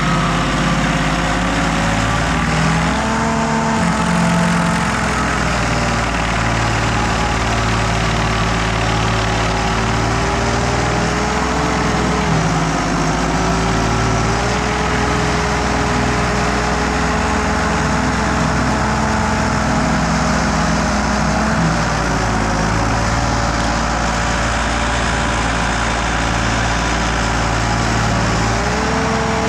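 Carlton SP6016TRX stump grinder running continuously under power at one steady loudness. Its engine note dips and recovers a few times, once a bit before the middle and again about two-thirds of the way through.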